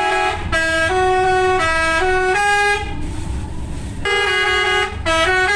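Bus 'telolet' horn, a multi-tone musical air horn, playing a stepped melody of chord-like notes. It breaks off for about a second around three seconds in, leaving a low rumble, then starts playing again.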